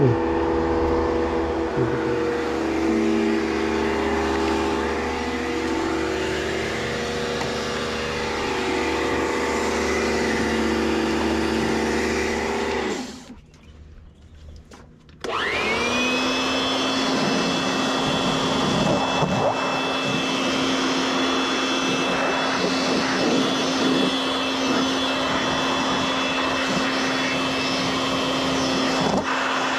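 Electric motor of a cleaning machine running with a steady whine, cutting off about 13 seconds in and spinning back up about two seconds later with a quick rising whine that settles to a steady pitch.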